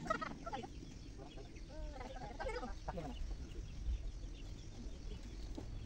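Chickens clucking in short calls, a few at the start and a cluster about two to three seconds in, over a low steady rumble.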